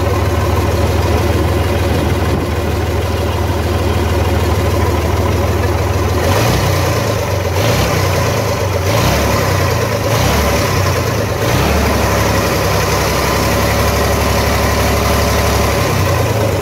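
Gardner 6HLW horizontal six-cylinder diesel engine running from cold at a steady idle. About six seconds in, its speed rises and falls a few times, then it settles back to a steady idle.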